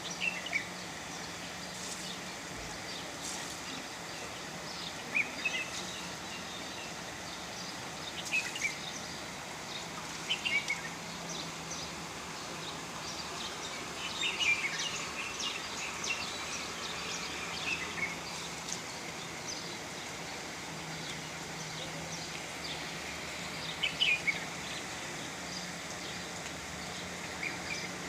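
Birds chirping in short clusters every few seconds over a steady background hiss, with a faint low hum coming and going.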